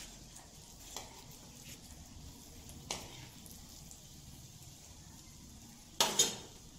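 An egg chop frying in oil in an aluminium kadhai, a faint steady sizzle. A slotted steel spoon clinks lightly against the pan twice, and there is a louder metal clatter near the end.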